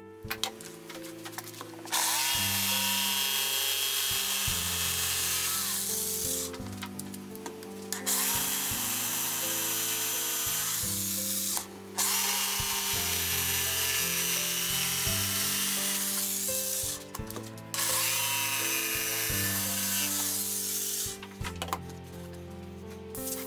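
Electric jigsaw cutting through the wooden table top in four runs of a few seconds each, its motor whining up at the start of each run and stopping between them. Background music plays underneath.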